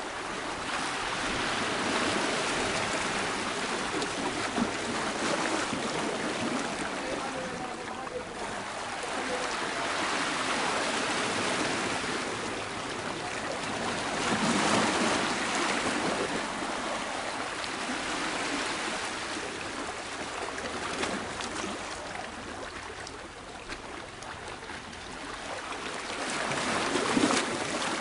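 Sea surf washing against the rocks, a continuous rushing that swells and eases every several seconds as waves come in.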